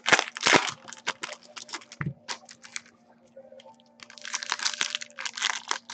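Foil trading-card pack wrappers crinkling and tearing as packs are opened by hand, in crackly bursts near the start and again from about four seconds in, with a quieter pause between.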